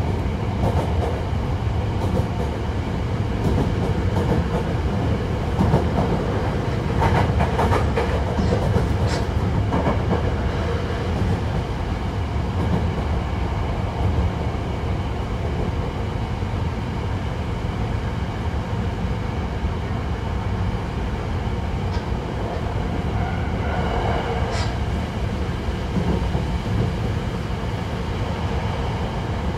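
Hankyu 1000 series electric train heard from inside the car while running: steady rumble of wheels on rail with faint, flat whine from its Toshiba permanent-magnet synchronous motor drive. A cluster of rail clacks comes about seven to ten seconds in, and another near 24 seconds.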